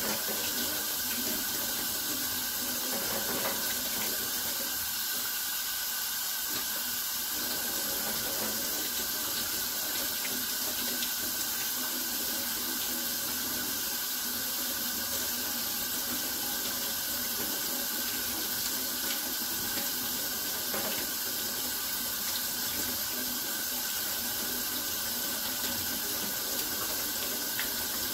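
Kitchen faucet running steadily into a stainless steel sink, the stream broken up by hands rinsing and peeling wild onions under it.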